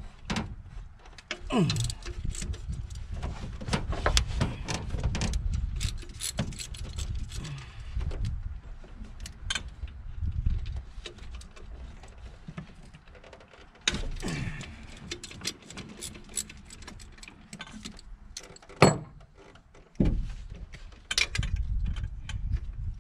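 Hand tools on a truck engine: a ratchet clicking and metal tools clinking as the half-inch bolts of the throttle cable bracket are undone, with one sharp clack near the end.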